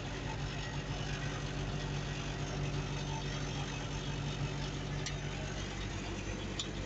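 Diesel engine of a Mertz 3250 floater idling steadily, heard from inside the cab. Two faint, brief high clicks come near the end.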